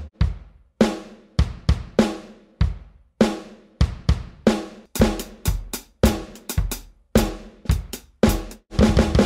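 Electronic drum-kit samples from the Aeroband Pocketdrum app, triggered by air-drumming with motion-sensing drumsticks and foot pedals: bass drum, snare, hi-hat and cymbal hits. The hits come about three a second and speed up, ending in a dense run of hits near the end.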